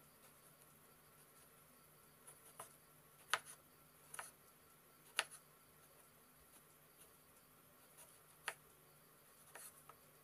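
Kitchen knife cutting through a tomato and knocking on a wooden chopping board: about half a dozen sharp, irregular taps, with quiet stretches between them.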